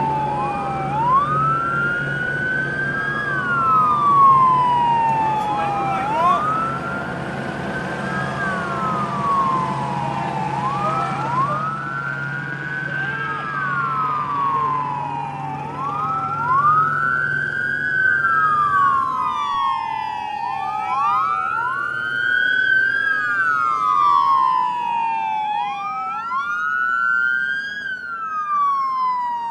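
Several police car sirens wailing together, each slowly rising and falling about every four and a half seconds, slightly out of step with one another. A low steady drone runs underneath and fades out about two-thirds of the way through.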